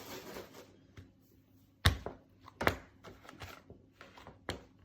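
A few sharp, irregular knocks, like chopping or hard objects being set down. The two loudest come less than a second apart near the middle, with fainter ones before and after.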